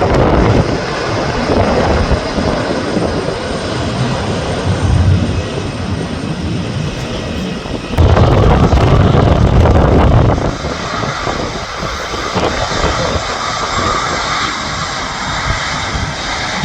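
Jet airliner engines running, heard through heavy wind buffeting on the microphone. The wind rumble swells sharply for about two seconds near the middle.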